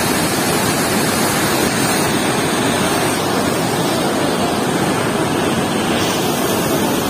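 Loud, steady rush of white water pouring out under a weir's sluice gate and churning against the concrete pier.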